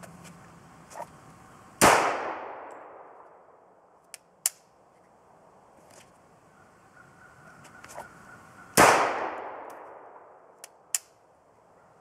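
Two single pistol shots from a SIG Sauer P227 .45 ACP, about seven seconds apart, each followed by a long echo dying away over about a second. A few light clicks of the pistol being handled come between and after the shots.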